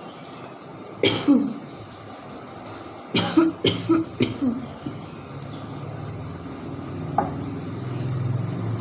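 A woman coughing deliberately: a double cough about a second in, a run of several coughs between about three and four and a half seconds, and one short cough near seven seconds.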